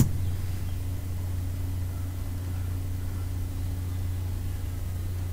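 A steady low hum with a faint higher tone and light hiss, unchanging throughout.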